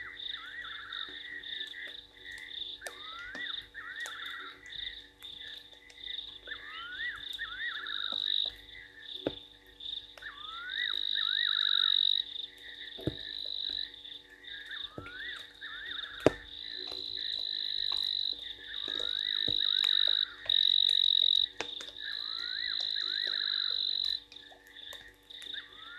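Frogs calling in a chorus: a high trilling that swells into louder held stretches of a second or two, over a lower run of quick rising chirps that comes back every three to four seconds. A few sharp ticks are scattered through it.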